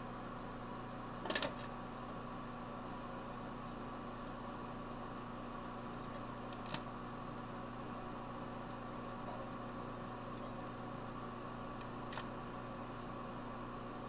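Microwave oven running with a steady electrical hum, while the small rear-projection-TV CRT inside it arcs with sharp snaps and crackles: a loud cluster about a second in, then single snaps about midway and near the end.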